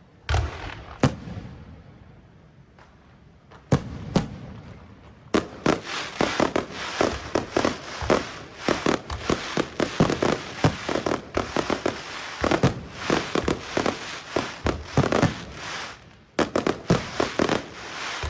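Fireworks going off. A few separate bangs come in the first few seconds, then a dense, rapid volley of bangs and crackles from about five seconds in. There is a short break near the end before more bangs.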